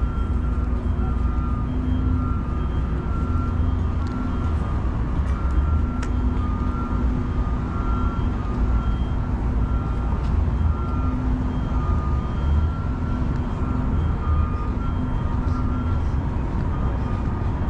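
Street traffic rumbling steadily, with a faint electronic beep repeating at an even pace over it.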